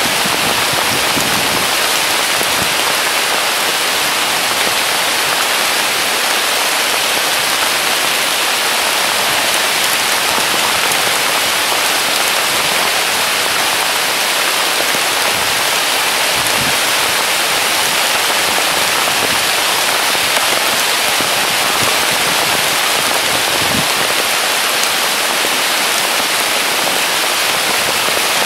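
Heavy rain pouring down steadily: an even, dense hiss of a downpour.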